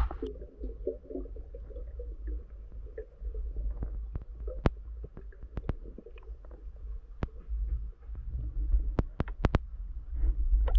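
Underwater sound at a spearfisher's camera as the diver goes under and swims: a short splash at the start, then a steady low rumble of water moving over the camera, with scattered sharp clicks and a quick run of them near the end.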